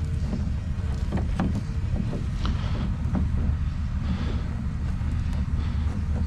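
Steady low rumble, like wind buffeting the microphone, with scattered light taps and rustles from a cord being knotted by hand in an aluminium boat.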